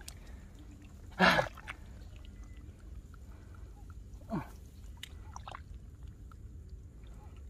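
Hands digging in wet mud and muddy water at a field-crab burrow, soft squelching and sloshing, with two short louder noises about a second in and about four seconds in.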